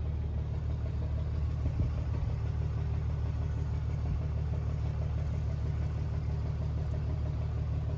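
Pickup truck moving slowly, heard from inside the cab: a steady low rumble of engine and drivetrain while it tows a heavy shack trailer over rough trails. A single light knock about two seconds in.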